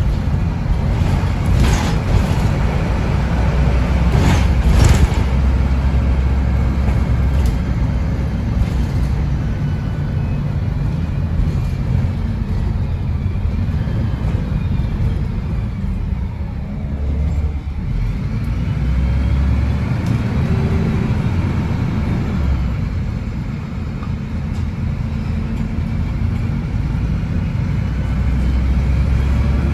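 MAN 18.240 bus's six-cylinder diesel engine running under way, heard from inside the bus. Its low note shifts several times and eases off briefly about two thirds of the way through, with a few knocks and rattles in the first few seconds.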